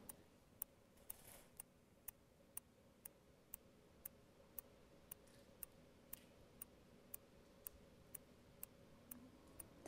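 Faint, steady ticking, about two evenly spaced ticks a second, like a clock, over a low steady hum.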